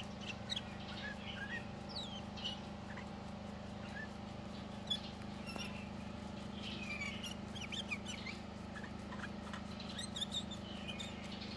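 Caged birds giving short, scattered chirps and squeaks, over a steady low hum.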